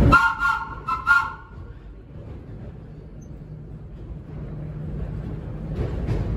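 Vintage R9 subway car's two-note horn sounding a longer blast then two quick ones, followed by the train's running rumble, quiet at first and building from about four seconds in.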